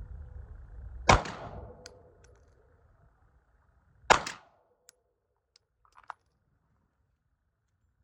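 Two pistol shots about three seconds apart, each trailing a brief ring, followed by a few faint small clicks.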